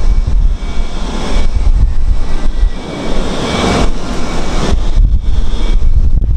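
Wind buffeting the microphone in a steady low rumble, with a rushing swell about three to four seconds in.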